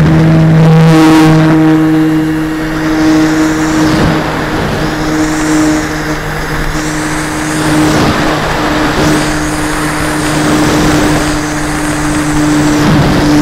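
Model airplane's motor and propeller running, heard from the plane itself during takeoff and climb: a loud, steady, nearly constant-pitch drone with wind rushing over the microphone.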